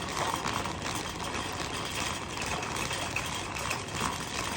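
A steady rushing noise that stops abruptly at the very end.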